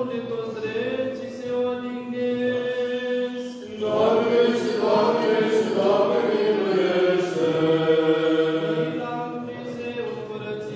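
Orthodox church chant: long held sung notes, then several voices come in louder about four seconds in, the melody moving, before easing off near the end.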